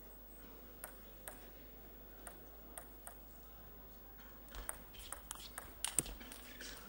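Table tennis ball clicking: a few separate bounces spaced out at first, then from about four and a half seconds in a fast rally of quick ball strikes on the bats and table, the loudest about six seconds in.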